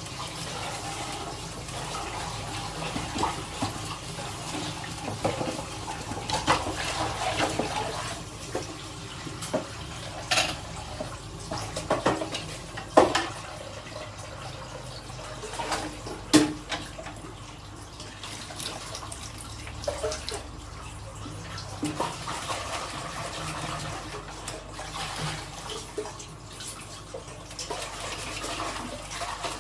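Dishes being washed by hand at a sink: tap water running steadily, with scattered clinks and knocks of dishes against each other and the sink. The sharpest knocks come a little before and after the middle.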